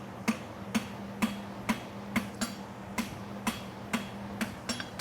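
Hand hammer striking a steel horseshoe bar on an anvil in an even rhythm of about two blows a second, each blow ringing briefly: forging the toe bend of a hind draft bevel shoe.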